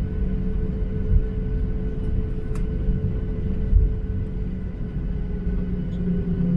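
Cabin noise of a Boeing 737-800 taxiing, its CFM56-7B engines running at low taxi power with a steady hum and rumble. Two brief low thumps come about a second in and again near four seconds.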